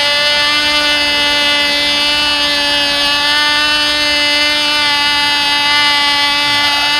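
Cox TD .049 glow engine, a tiny two-stroke, running flat out in flight with a steady high-pitched buzz. Its pitch swells and falls slightly in a regular cycle as the control-line plane circles the pilot.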